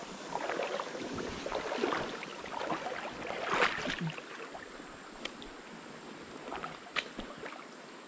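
Shallow river water splashing and sloshing around a wading angler, with a louder swell about halfway through and a few sharp clicks later on.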